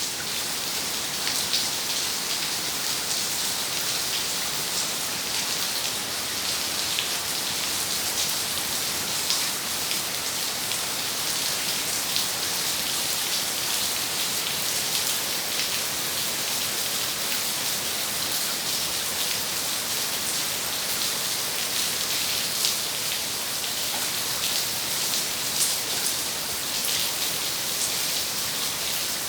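Steady heavy rain falling and spattering on surfaces, a dense even hiss dotted with individual drop impacts, from a tropical depression's day-long downpour.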